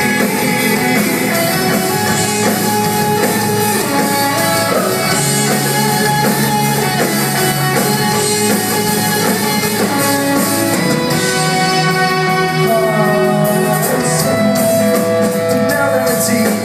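Live pop-rock band playing an instrumental passage between sung lines, with held notes and a sliding melodic line near the end.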